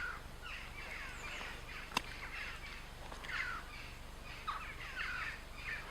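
Birds calling, a run of short, repeated calls that sweep downward in pitch, with a single sharp click about two seconds in.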